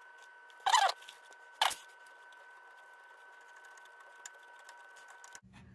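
Two short scrapes from handling a plastic catch cup and a hydraulic line fitting under a tractor frame, with faint ticks between them over a faint steady hum.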